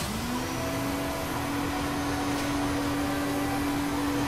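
A small motor spinning up to a steady hum within the first half second, over a steady hiss.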